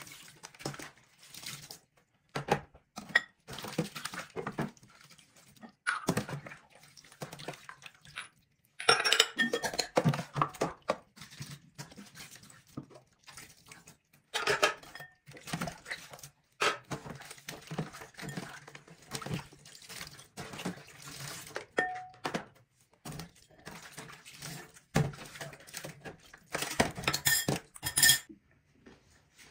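Dishes being washed by hand in a stainless steel sink: Pyrex glass bowls and plastic lids clinking and knocking irregularly as they are handled and stacked, with water pouring and splashing as they are rinsed.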